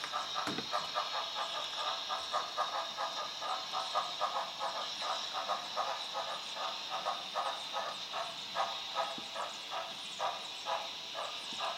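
Onboard sound of an HO scale Southern Pacific cab-forward steam locomotive model playing steam exhaust chuffs in a steady, even rhythm over a constant hiss as the model moves slowly.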